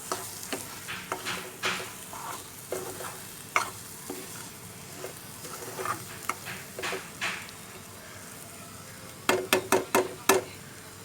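Onion and ginger-paste masala sizzling in oil in a pan while a spoon stirs it, with scattered knocks and scrapes. Near the end comes a quick run of about six sharp taps.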